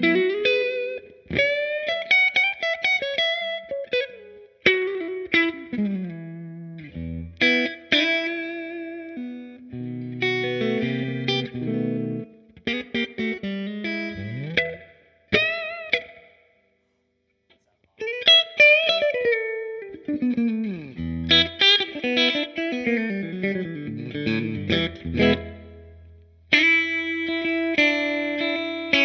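Electric guitar played through a Fender Blues Deluxe Reissue tube amp with a lightly overdriven tone: bluesy single-note licks with string bends. It breaks off for a moment a little past halfway, then picks up again and ends on a held chord.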